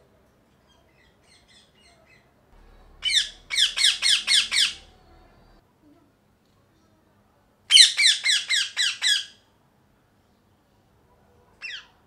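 Indian ringneck (rose-ringed) parakeet giving two runs of loud, shrill squawks, about six harsh notes each at roughly four a second, starting about three seconds in and again about eight seconds in, then one short squawk near the end.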